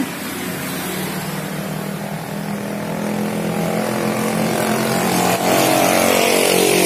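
A motor vehicle's engine running with a steady hum that grows louder over the second half.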